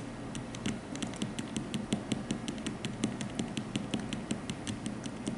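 Diamond painting drill pen tapping resin drills onto the adhesive canvas: a quick run of light clicks, several a second, as a strip of drills is laid down.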